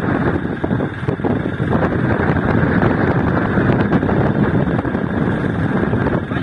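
Small dump truck's diesel engine running steadily while the raised tipper bed unloads sand, with wind buffeting the microphone.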